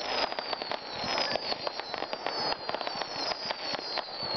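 Fireworks display going off in a rapid, continuous string of pops and crackles, with several high whistles that fall in pitch and overlap.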